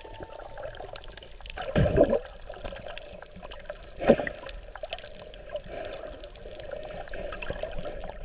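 Muffled underwater sound picked up by a submerged action camera: a steady wash of sea water with two louder swishes of moving water about two and four seconds in. It cuts off abruptly at the end.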